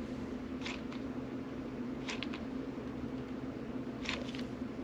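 A steady low machine hum, with three short clusters of clicks about a second and a half apart from a hot glue gun's trigger being squeezed to feed glue.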